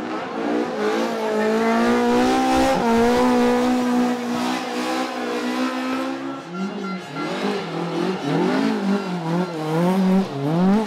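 Rally car engine held at high revs, then from about six and a half seconds in the revs rise and fall quickly over and over under hard throttle work.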